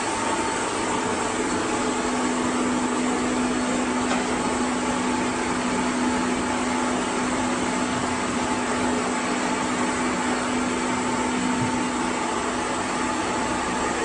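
Murka AVG LRP-1200-5-LD aerated concrete cutting line running: the electric drives of its saw heads give a steady hum with a higher tone over constant machine noise.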